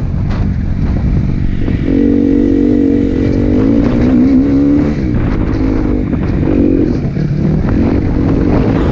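Dirt bike engine heard from on board under hard riding, revving and easing off as the throttle is worked. It holds high revs for a few seconds, drops briefly past the middle, then picks up again.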